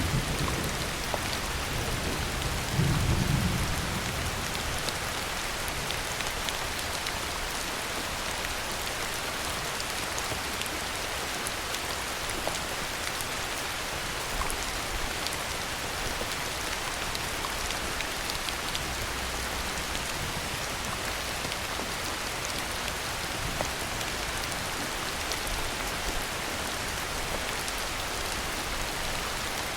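Heavy rain falling steadily, with a brief low rumble of thunder about three seconds in.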